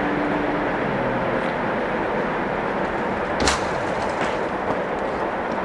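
Railway coaches rolling past and away along the track, a steady rush of wheels on rail, with one sharp clack about three and a half seconds in.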